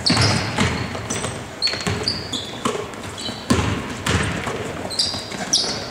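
A basketball bouncing several times on a hardwood gym floor, with sneakers squeaking as the players move, in a large gym.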